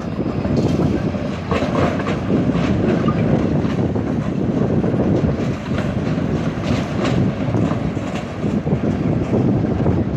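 Tram running on its rails: a steady low rumble broken by irregular sharp clacks from the wheels.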